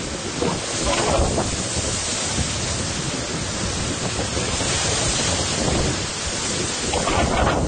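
Hurricane-force wind blowing across the microphone, with surf breaking on the shore: a steady rush of noise, with louder gusts about a second in and again near the end.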